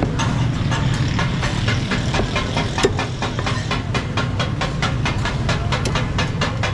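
A butcher's cleaver chopping goat meat on a wooden block: quick, regular chops, several a second, over a steady low hum.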